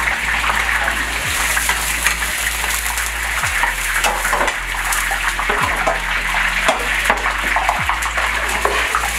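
Meat frying in hot oil in a large kazan for plov: a steady sizzle, with scattered clinks and scrapes of a long-handled skimmer stirring the pieces and lifting them out.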